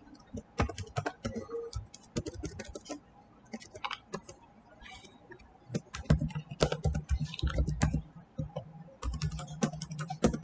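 Computer keyboard keys clicking as an email address and password are typed, in irregular runs of quick keystrokes with short pauses between them, the runs closer together in the second half.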